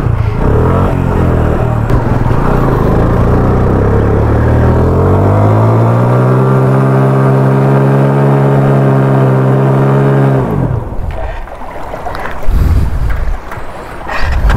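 Motorcycle engine revving up and held at high, steady revs for about four seconds while ridden through a shallow river. About ten seconds in the revs drop away into a rough, noisy stretch with a loud knock or splash, as the rear wheel bogs down in the river gravel.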